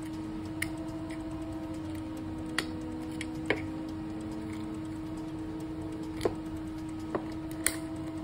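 Small parts of an airsoft gas-blowback trigger box clicking and tapping against a metal punch as the selector is pushed out: about six sharp clicks at uneven intervals over a steady hum.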